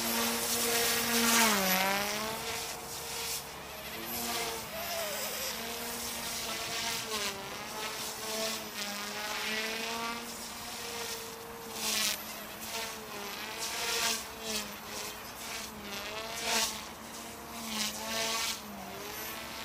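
OMP Hobby M2 electric RC helicopter flying 3D stunts, its rotor and motor making a buzzing whine that bends up and down in pitch as it manoeuvres, with several louder swells.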